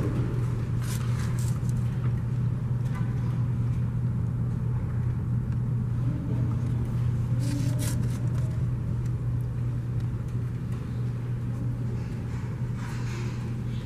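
Steady low hum, with a few brief clicks about a second in and again past the middle.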